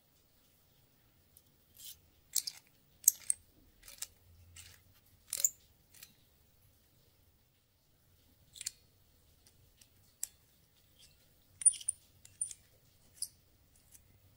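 Small metal parts of an automatic center punch clicking and scraping as its coil spring and threaded brass sections are handled and fitted back together: scattered sharp clicks, some in quick clusters.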